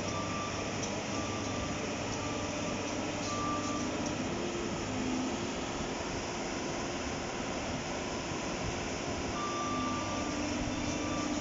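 JCB tracked excavator's diesel engine running steadily with its hydraulics, while a high alarm beeps on and off: short beeps about once a second at first, then longer beeps near the end.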